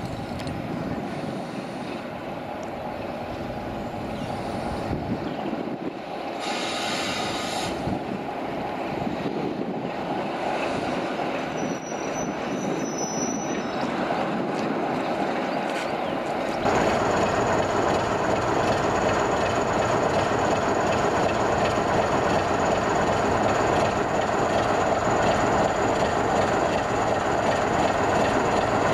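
British Rail Class 33 diesel locomotive D6535, Sulzer-engined, running in hauling a rake of coaches and passing close by. It grows louder as it approaches and is much louder from about two-thirds through, with a steady high squeal from then on.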